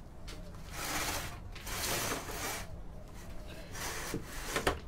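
Rubbing and scraping handling noise: about four swishes of roughly a second each.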